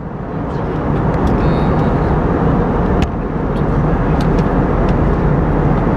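Steady roar of airflow and the Airbus A320's IAE V2500 turbofans heard from inside the passenger cabin during the descent. The noise drops sharply at the start and swells back over about a second, then dips briefly again about three seconds in.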